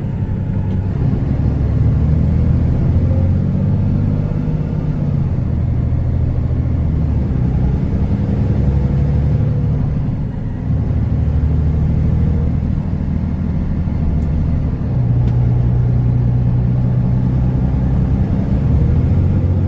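Kenworth T360 truck engine running steadily under way, heard from inside the cab as a loud low drone. Its pitch shifts slightly a couple of times, with a short dip about halfway through.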